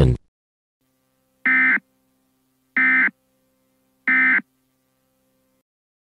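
Emergency Alert System end-of-message signal: three short bursts of buzzing digital data tone, evenly spaced about a second and a quarter apart, marking the end of the alert. A faint steady hum runs underneath.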